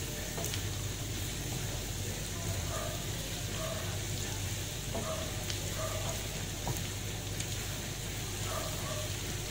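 Shredded cabbage, carrot and capsicum sizzling in hot oil in a wok while being stir-fried with a wooden spatula, a steady frying hiss with a few light taps and scrapes of the spatula against the pan.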